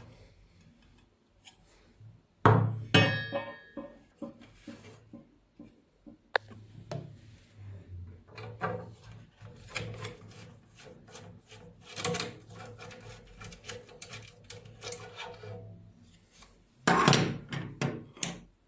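Irregular knocks, clatter and rubbing of tools and parts being handled during a workshop build. A part rings briefly about two and a half seconds in, and a loud cluster of knocks comes near the end.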